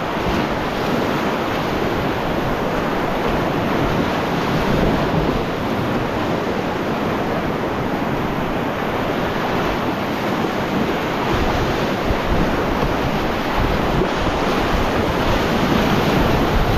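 Whitewater river rapids rushing, a loud, steady wash of moving water with no let-up.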